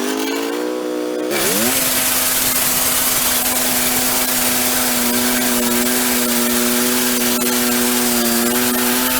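Wood-Mizer LX150 bandsaw mill running under load as its band blade saws through an oak log, the engine holding a steady pitch. The pitch sags briefly about a second and a half in, then recovers.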